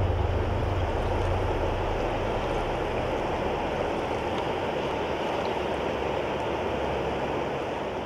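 Steady rush of flowing river water, with no change in level.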